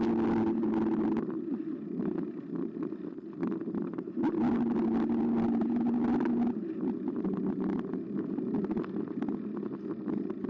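Carbo X eBike riding along with its motor giving a steady whine that cuts in and out, over tyre and wind noise with frequent small rattles and knocks from the bike.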